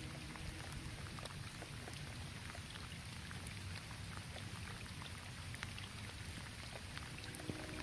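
Light rain falling on a roof: a steady patter with single drops ticking through it. Soft sustained music tones come in near the end.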